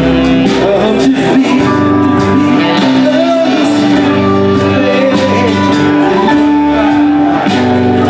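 Live band music: saxophone lines with vibrato over strummed acoustic guitar, electric guitar and keyboard, in a long passage without lyrics.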